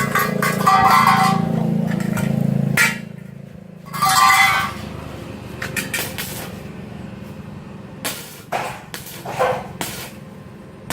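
Stick-welding arc from an ARC200 IGBT inverter welder running at about 50 A on galvanised pipe with a 2.5 mm rod, crackling in short bursts. A low steady hum in the first few seconds gives way to bursts around four seconds and eight to nine seconds in.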